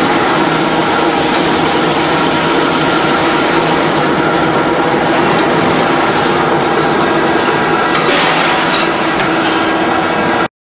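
Three-roll thread rolling machine running on a pipe, a steady, loud mechanical hum and clatter. It cuts off suddenly near the end.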